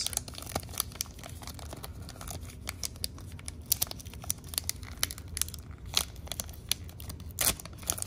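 Trading-card booster-pack wrapper crinkling and tearing as it is worked open by hand, a run of irregular sharp crackles, the loudest a little past the middle and again near the end.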